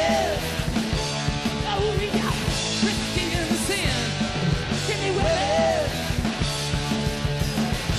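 Rock band playing loudly: a singing voice over electric guitar, bass and drums.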